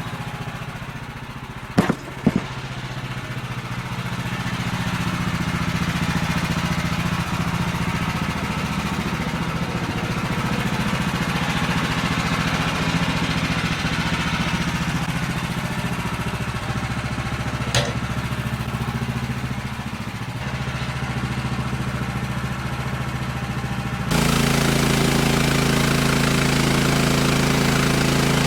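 Woodland Mill portable bandsaw sawmill's gas engine running steadily while milling a red oak log. Sharp knocks come twice about two seconds in and once more after about 17 seconds, and the sound jumps abruptly louder and harsher about four seconds before the end.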